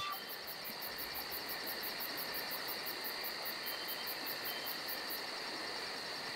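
Night insect chorus: crickets chirping in fast, even pulses, about five or six a second, over a steady high-pitched insect drone and a soft hiss.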